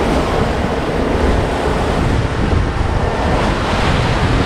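Wind buffeting the microphone over the steady rush of choppy waves along the hull of a moving catamaran.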